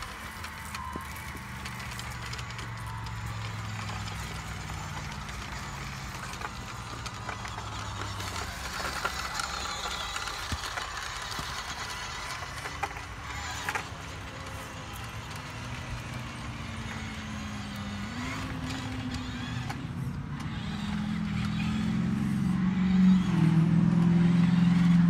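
Radio-controlled Western Star dump truck running, with a low engine-like drone that rises in pitch and gets louder toward the end.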